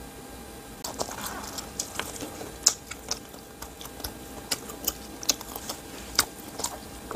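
A person chewing and smacking their lips close to the microphone: a string of irregular wet mouth clicks, about one or two a second, starting about a second in.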